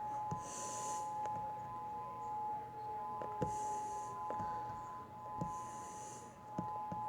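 Outdoor warning siren sounding a steady two-note chord during a siren test, with a fainter tone falling slowly in pitch behind it in the first few seconds.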